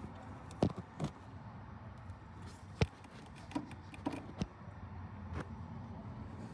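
Hand tools knocking and clinking against metal in a car's engine bay while bolts are being worked on: about seven sharp, irregular knocks, a couple with a short metallic ring, over a steady low hum.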